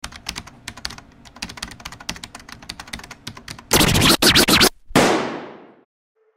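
Logo intro sound effect: a rapid, irregular run of clicks like typing for about three and a half seconds, then two loud bursts of noise, the second fading away.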